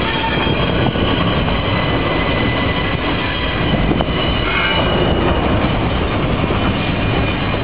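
BNSF double-stack container train rolling past: a steady, loud rumble of wheels on rail, with thin high squealing tones from the wheels running above it.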